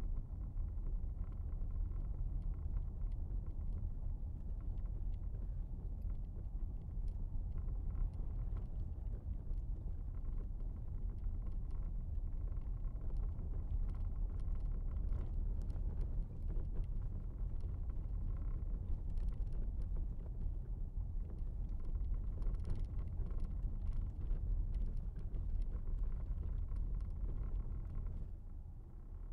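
Car driving over a cobblestone street, heard from inside the cabin: a steady low tyre rumble with a scatter of small clicks and knocks. It grows quieter near the end as the road turns to smooth asphalt.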